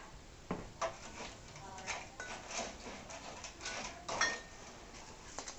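Small items being handled and set down on a bar cart: a string of light clicks, taps and clinks, the loudest about four seconds in with a short ringing clink.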